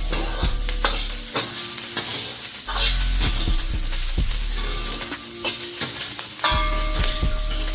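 Garlic, ginger and onion sizzling in oil in a hot carbon steel wok, stirred with repeated scrapes and knocks against the metal. This is the final seasoning stage, roasting the aromatics so the oil coats and sets on the wok.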